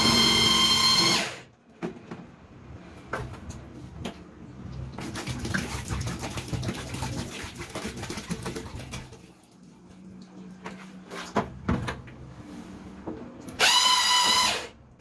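Liquid detergent batch being stirred in a container: irregular clattering, knocks and scraping with a faint low hum. A loud held tone with overtones sounds briefly at the start and again near the end.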